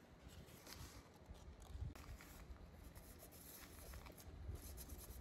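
Faint rubbing and light handling clicks from a gold-testing stone being wiped clean of acid and old test streaks.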